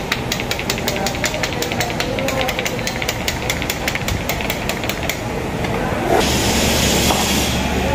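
Workshop noise: a fast, even ticking, about six ticks a second, stops about five seconds in; about a second later a steady loud hiss of air with a low hum underneath starts.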